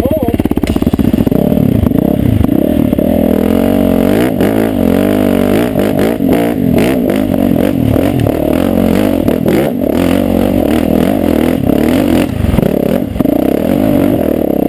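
Dirt bike engine idling briefly, then revving up and down repeatedly as the bike climbs a rocky trail, with knocks and clatter over the rocks.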